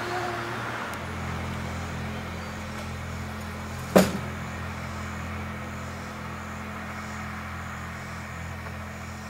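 Steady low hum, with one sharp click about four seconds in.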